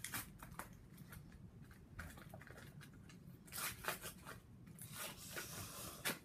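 A crinkly foil-lined candy wrapper being torn and peeled off a cone-shaped sweet by hand, crackling in irregular bursts that are busiest in the second half.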